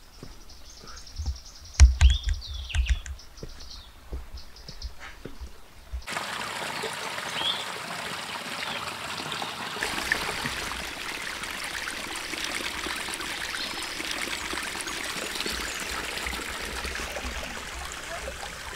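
Birds calling, with a few low thumps, for the first six seconds; then, from an abrupt change about six seconds in, a shallow mountain stream trickling steadily over rocks.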